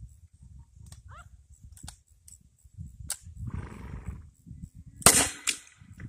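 A break-action 40mm grenade launcher fires once about five seconds in: a sharp report, with a second crack about half a second later. The 3D-printed, chalk-filled round comes apart in the barrel. A single click comes about two seconds before the shot.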